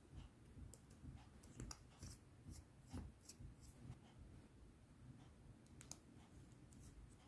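Clear slime being worked by hand, giving faint, irregular sticky clicks and crackles.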